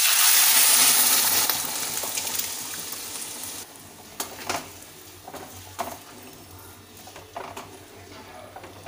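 Boiled mung dal poured into a hot kadai of fried fish head and spices, hitting the hot oil with a loud sizzle that fades over about three seconds. After that a spatula stirs it, knocking against the pan several times.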